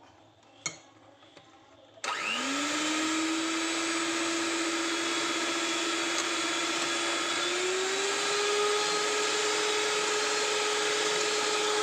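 Electric hand mixer with twin beaters starting up about two seconds in. Its motor whine climbs quickly, then runs steady, and steps up a little in pitch about two-thirds of the way through as it beats powdered sugar into an egg-and-oil cake batter.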